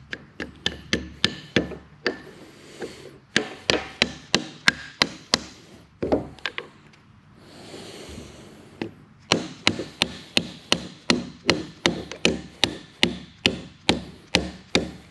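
A red plastic mallet tapping a steel shaft into its bore in a lathe's two-speed tailstock gearbox housing. Runs of quick sharp taps, about three a second, broken by two pauses; the longer pause falls near the middle.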